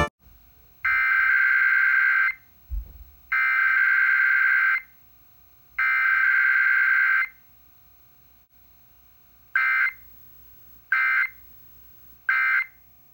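Emergency Alert System SAME data tones for a Required Weekly Test: three buzzy header bursts of about a second and a half each, then, after a pause, three short end-of-message bursts. No attention tone or voice message comes between them, as is usual for a weekly test.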